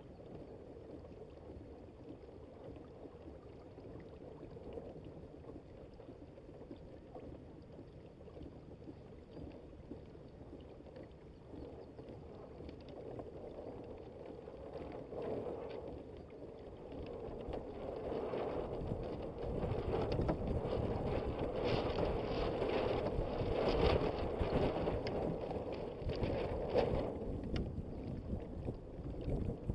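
Water rushing along the hull of a Hobie Adventure Island sailing kayak under sail, with wind buffeting the microphone; both grow louder a little past halfway as the boat picks up speed or the wind freshens.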